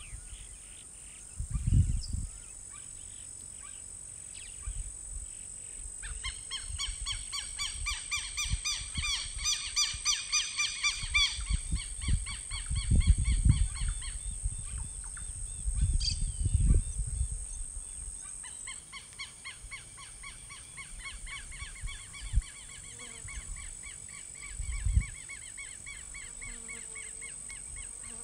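A steady high insect drone, with a bird calling in long runs of rapid, repeated notes about six seconds in, breaking off for a few seconds near the middle and then starting again. Low rumbles come and go beneath.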